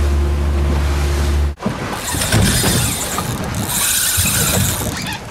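A boat's motor running with a steady low hum, cutting off abruptly about a second and a half in. After it comes a loud irregular rush of wind and splashing water.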